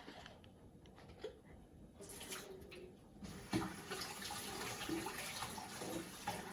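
Water running from a tap, starting about halfway through as a steady hiss.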